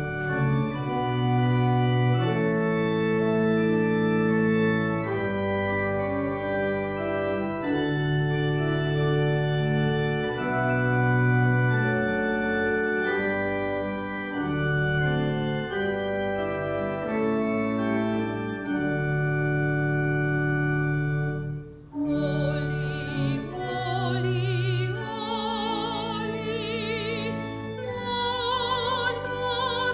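Organ playing slow, held chords. After a brief break about twenty-two seconds in, a woman's classical singing voice enters with vibrato, with the organ accompanying her.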